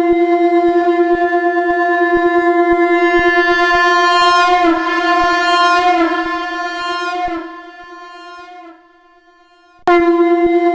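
Shankh (conch shell) sounding one long, steady note on F with a fast flutter in its loudness. It grows brighter in the middle, then dies away, and a fresh blast starts near the end.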